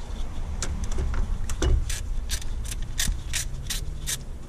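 Hand ratchet with a 12 mm socket clicking in a steady rhythm, about three times a second, as it is swung back and forth to loosen the starter motor's battery-cable terminal bolt.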